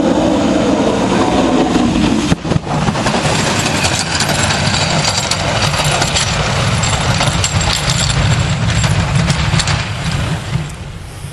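Snowplow truck running along a snowy road: a steady engine drone under loud rough scraping and rattling noise, fading near the end as it moves off.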